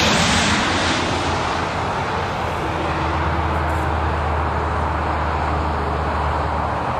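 Twin rear-mounted turbofan engines of a business jet on short final, just past overhead and moving away toward the runway. The jet noise fades over the first couple of seconds, then holds steady with a low hum underneath.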